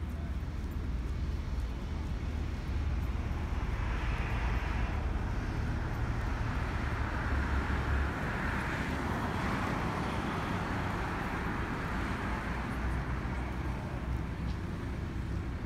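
Road traffic: a steady low rumble of motor vehicles, with a broad swell of tyre and engine noise as a vehicle passes between about four and ten seconds in.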